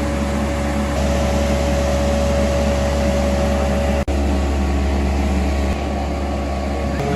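Steady drone of workshop machinery: a deep hum with a steady higher tone over it, cutting out for an instant about four seconds in.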